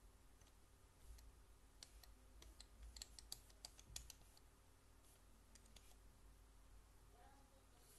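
Near silence: quiet room tone with a cluster of faint, sharp clicks in the middle.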